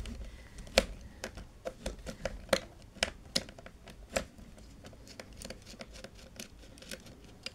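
Irregular small clicks and taps of a screwdriver working a terminal screw on a plastic AC contactor while a small wire is fitted to it, busiest in the first four seconds and sparser after.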